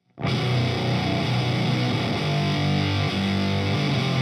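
Electric guitar played through the Meat Grinder Fuzz, a silicon-transistor octave fuzz pedal based on the Univox Super Fuzz. It comes in abruptly a moment in as a thick, heavily distorted low riff with long held notes.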